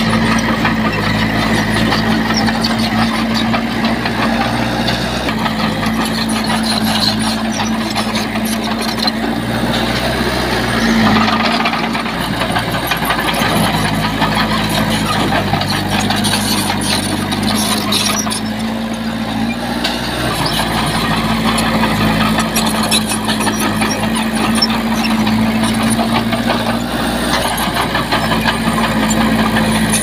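Diesel engine of heavy earthmoving machinery running steadily, its pitch shifting slightly as the load changes, with a continual metallic rattle.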